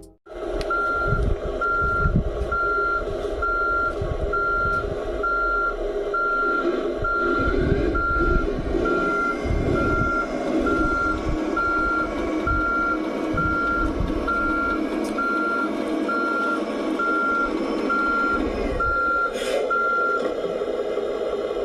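RC Mercedes-Benz Arocs model truck's sound module playing a reversing beeper, an even single-tone beep about every 0.7 seconds, over a simulated diesel engine running as the truck backs up. The beeping stops near the end while the engine keeps running.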